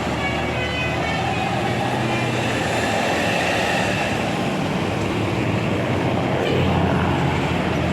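A large bus's diesel engine running with a steady low rumble.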